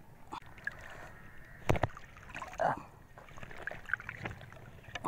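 Lake water sloshing and splashing around a mesh fishing net being handled at the surface, with scattered small clicks and one sharp knock a little under two seconds in.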